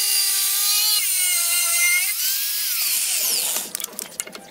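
Angle grinder with a thin cutoff wheel cutting a steel saw blade: a loud, high whine whose pitch shifts and dips as it works, then winds down about three and a half seconds in. Scattered light clicks and taps follow.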